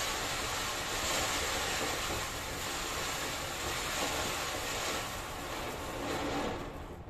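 Sunrise Fireworks Wonder Series ground fountain (anar) burning, a steady hiss of spraying sparks. It weakens near the end as the fountain burns out.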